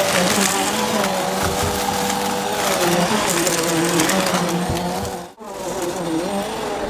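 Bissell CleanView upright vacuum cleaner running, its motor pitch wavering, with crackling of debris being sucked up. The sound drops out for an instant about five seconds in.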